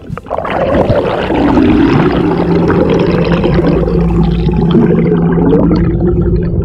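Bixpy Jet electric kayak thruster running, heard from underwater: a steady hum with a higher whine that rises slightly near the end, over bubbling water noise. The first second is splashing and bubbling.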